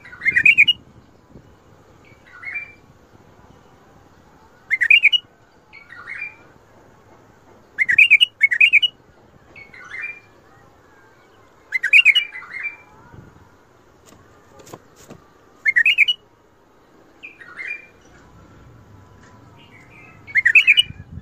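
White-eared bulbul (Iraqi bulbul) singing: short, loud phrases repeated every two to four seconds, with quieter phrases in between.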